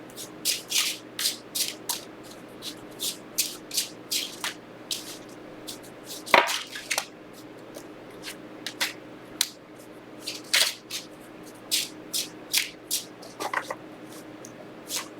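A tarot deck being shuffled and handled by hand: a run of short, papery swishes and slaps at an uneven pace of one or two a second.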